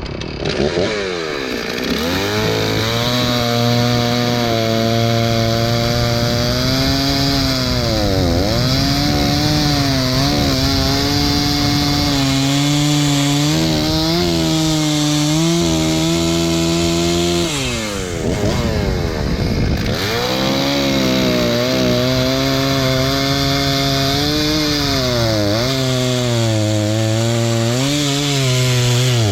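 Stihl chainsaw running at high revs and cutting through wood, its engine pitch sagging under load during the cuts. About two-thirds through it drops off briefly, then revs up again for the next cut.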